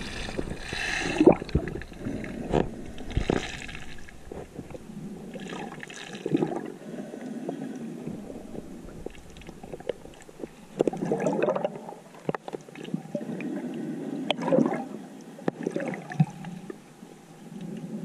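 Underwater sound heard through a camera housing: water rushing and gurgling in uneven swells, with scattered sharp clicks and knocks.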